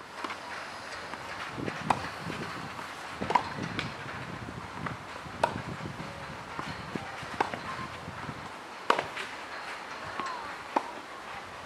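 Tennis balls struck with rackets in a rally on a clay court: sharp pops every second or two, with lighter knocks between them.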